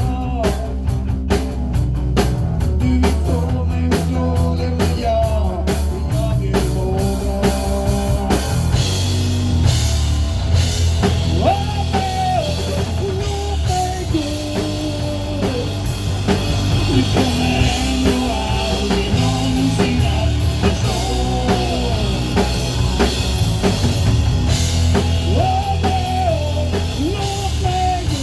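Rock music played by a band: drum kit and bass under a wavering lead melody line.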